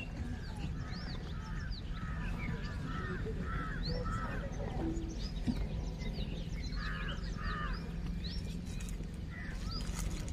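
Crows cawing: a quick run of about seven caws, then two more a few seconds later. Smaller birds chirp higher up, over a low steady rumble.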